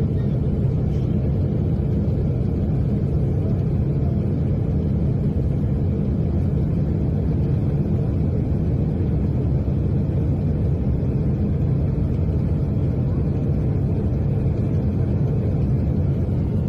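Steady, loud rumble heard inside the cabin of a Boeing 777 in flight, with one Pratt & Whitney PW4000 engine blown apart and burning after an in-flight engine failure.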